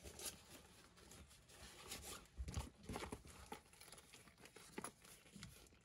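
Faint rustling of paper bills and soft taps and clicks of a leather wallet being handled and closed.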